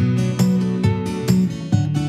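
Background music: an acoustic guitar strumming chords in a steady rhythm, about two strums a second.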